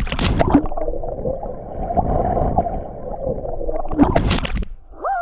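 A person plunging into deep water from a cliff jump, heard through a half-submerged action camera: a sharp splash at the start, then a muffled underwater rush of bubbles. A second splash-like burst comes about four seconds in.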